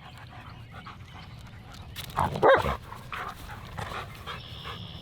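German Shepherd giving a single loud bark about two seconds in, followed by a few softer short sounds.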